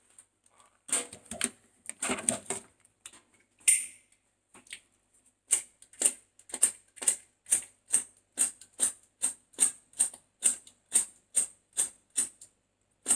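A cigarette lighter struck over and over, about two sharp clicks a second for several seconds. Before that comes a short stretch of rustling handling noise.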